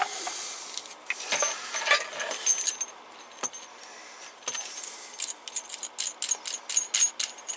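Light metallic clicks and clinks of a PL259 coax connector being handled, its coupling sleeve rattling against the plug body as it is threaded on. A few scattered clicks give way to a quick run of clicks near the end.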